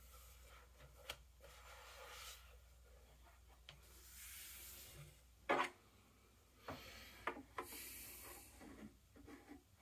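Leather hides being handled: soft rubbing and swishing as a hand smooths the sheets and slides them across each other and the desk, with a few knocks, the loudest about halfway through.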